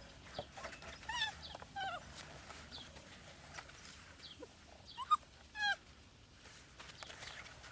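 Young puppies, about four and a half weeks old, whining in short high calls that bend in pitch: a pair between one and two seconds in, and two louder ones just after five seconds.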